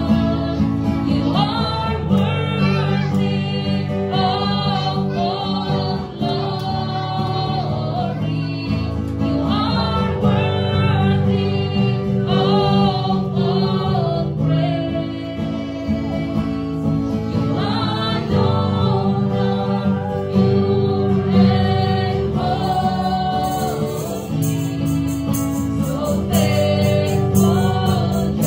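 Live worship song: a woman singing the melody into a microphone, accompanied by acoustic guitar and electronic keyboard playing sustained chords.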